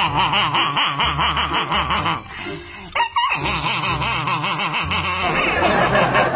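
Laughter in quick snickering bursts. It breaks off about two seconds in and picks up again a second later.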